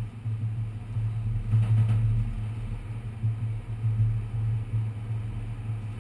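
New York City subway car running, heard from inside: a steady low hum and rumble that swells and dips, with a brief burst of louder, hissier noise about a second and a half in.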